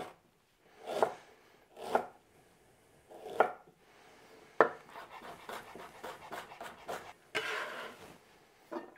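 Chef's knife chopping fresh ginger on a wooden cutting board: single cuts about a second apart, then a quicker run of small chops in the second half.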